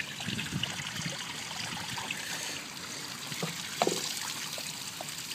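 Water trickling and dripping off the edge of a wooden sand-and-water play trough, with a short sharp tap a little under four seconds in.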